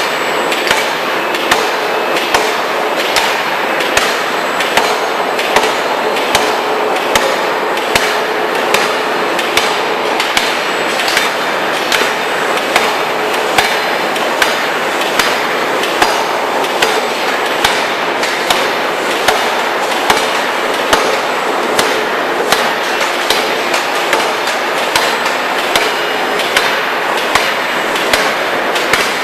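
Forging hammer striking repeatedly in a steady rhythm, about one hard blow every three-quarters of a second, over the machine's constant running noise.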